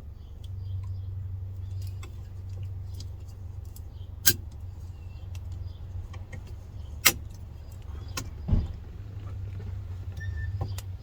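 Wiring harness plugs being pulled off and pushed onto a truck's headlight switch: a few sharp plastic clicks, the loudest about four and seven seconds in, among lighter handling ticks and rattles, over a steady low hum.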